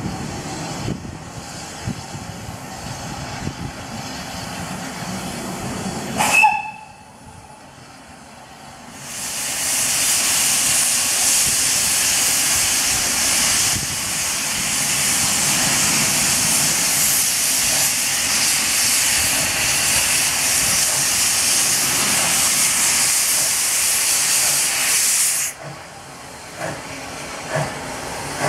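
0-6-0 steam locomotive pulling away. A very short whistle blast comes about six seconds in. A few seconds later a loud, steady hiss of steam from the open cylinder drain cocks starts and runs for about sixteen seconds, then cuts off suddenly. A few separate beats follow near the end as the engine moves off.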